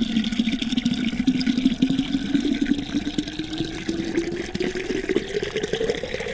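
A stream of water from a garden hose pouring into a large terracotta olla buried in the soil, splashing steadily. A tone in the splash climbs smoothly in pitch as the pot fills up.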